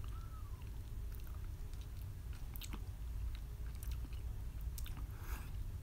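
A person chewing a mouthful of spicy ramen noodles, with scattered wet mouth clicks and smacks over a steady low hum, and a short breath near the end.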